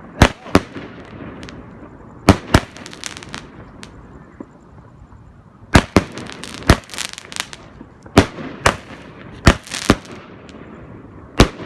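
A 16-shot 200 gram firework cake firing its shots one after another: about a dozen sharp bangs in uneven groups of two or three, a second or more apart, with a faint hiss between them.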